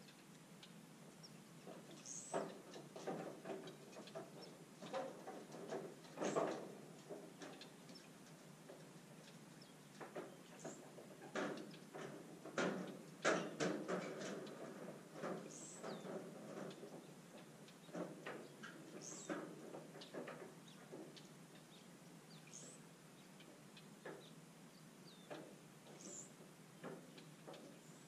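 Faint outdoor ambience of scattered clicks and taps, busiest about a third and halfway through, with a short high bird chirp repeating every three to four seconds.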